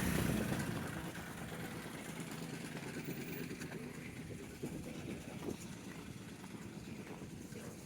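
An engine running steadily, with a low hum that dies down a little over the first second.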